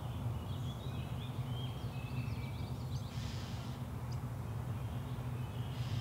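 Outdoor birdsong ambience: small birds chirping with short gliding notes over a steady low hum, with brief soft rushes of hiss about three seconds in and near the end.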